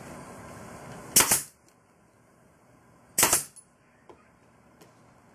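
Pneumatic brad nailer firing twice, two sharp cracks about two seconds apart, driving brads into wood.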